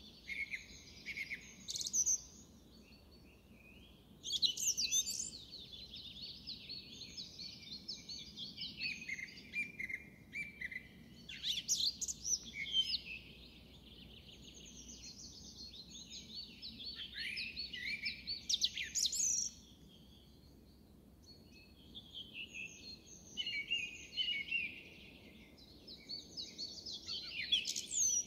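Song thrush singing from a treetop: long runs of rapid, varied phrases, broken by two short pauses, one a few seconds in and one about two-thirds of the way through.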